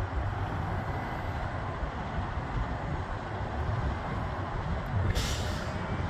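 Wind buffeting the microphone over the distant rumble of a plane climbing out after takeoff, with a short hiss about five seconds in.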